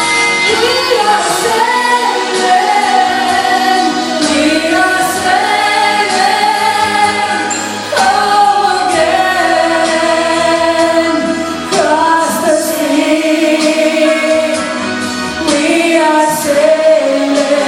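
Music with a sung melody, several voices in a choir-like blend over a held accompaniment.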